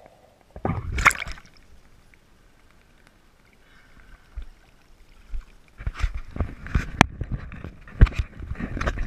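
Pool water splashing and sloshing against a waterproof action camera as it breaks the surface about a second in. Over the second half come a run of sharp knocks and clicks from the camera housing being handled at the waterline, mixed with more splashing.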